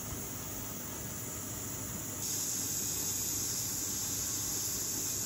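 Steam hissing steadily from a stovetop pressure cooker's valve, turning louder and sharper about two seconds in.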